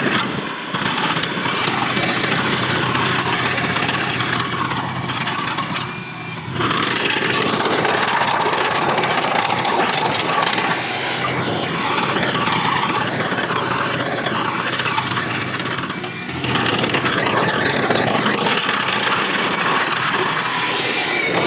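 Heavy earthmoving machinery (bulldozer and dump trucks) running, a loud, steady engine noise that dips briefly three times.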